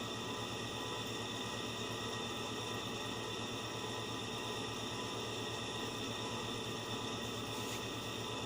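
Steady electrical hum with hiss: a low hum and a few constant higher tones that do not change.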